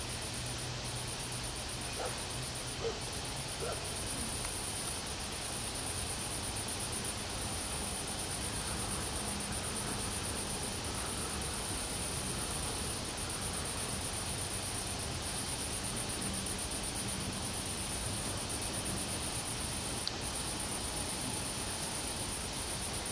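Steady ambient noise: a continuous high-pitched chirring that breaks off briefly a few times, over a faint low hum, with a few faint clicks a few seconds in.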